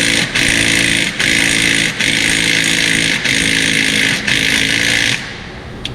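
Impact wrench driving the centre bolt of a harmonic balancer puller to pull a crankshaft pulley. It runs in about five trigger squeezes of around a second each, with brief pauses, and stops about five seconds in.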